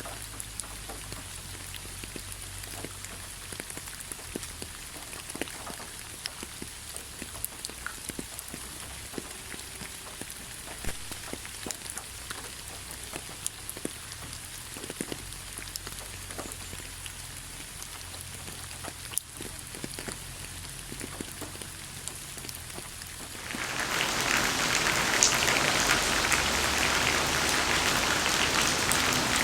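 Rain falling: a light rain with separate drops ticking sharply, which suddenly turns to a much louder, denser downpour near the end.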